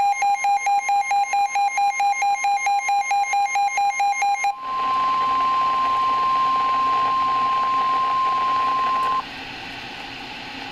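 A weather-alert radio's rapid two-note alarm beeping about five times a second, then about four and a half seconds in the steady single NOAA Weather Radio warning alarm tone, marking an incoming severe weather warning. The tone cuts off about nine seconds in, leaving radio hiss.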